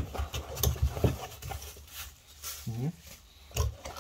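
Cardboard box being handled and opened by hand: scraping and knocks of the cardboard, with a short pitched sound that bends in pitch near three seconds in.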